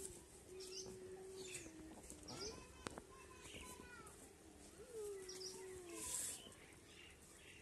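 A farm animal calling three times, each call rising then held steady for about a second, with birds chirping.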